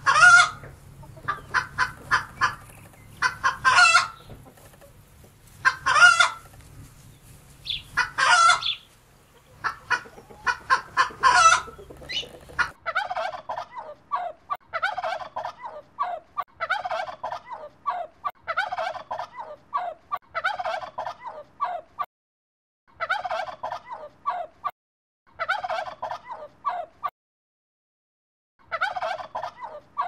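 Chickens, a rooster and hens: loud calls every two to three seconds with quick clucking between them. About thirteen seconds in this gives way to a domestic turkey gobbling, each gobble a short quick run of notes, about once a second.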